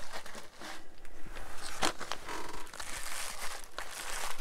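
Plastic wrapping crinkling and rustling as it is handled, with a few sharp clicks, the clearest about two seconds in.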